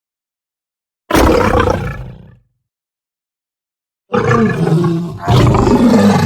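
Designed sabre-toothed cat (Smilodon) roar sound effects: one roar about a second in that trails off, then, after a gap of silence, two roars back to back near the end.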